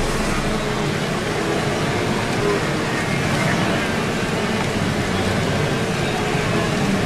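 Din of a large wildebeest herd crossing a river: continuous splashing and churning water with many overlapping short grunting calls.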